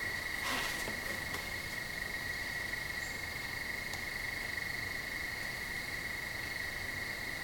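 Crickets chirping in a steady, unbroken trill, with a faint brief rustle about half a second in.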